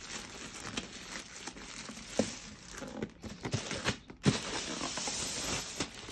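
Plastic mailer bag crinkling and rustling as a cardboard shoebox is slid out of it, with a few sharp knocks and a longer rustle starting about four seconds in.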